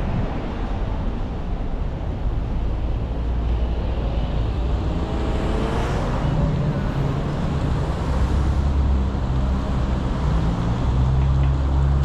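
City street traffic: cars passing across an intersection in front of a car stopped at a red light, over a steady low rumble, with one vehicle going by about halfway through.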